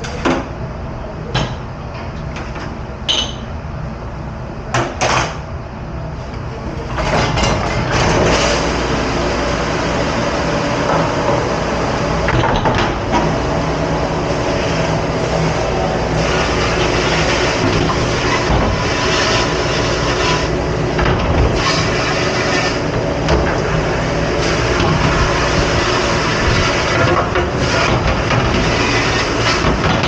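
Dish-room clatter: a few sharp knocks of dishes and racks, then about seven seconds in a loud, steady rushing and rumbling machine noise starts and keeps on, with knocks and clatter over it.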